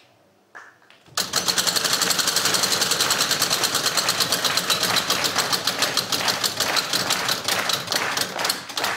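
Game-show prize wheel spinning, its pegs clicking rapidly against the pointer from about a second in. The clicks slow gradually toward the end as the wheel coasts down.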